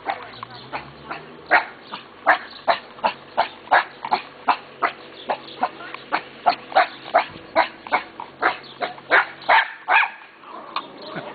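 Dog barking over and over in short barks, about two to three a second, stopping near the end.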